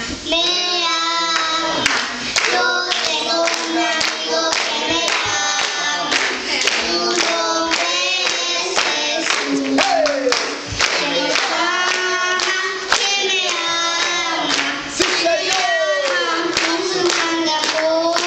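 A group of children singing a worship song together, with hand claps keeping time about twice a second.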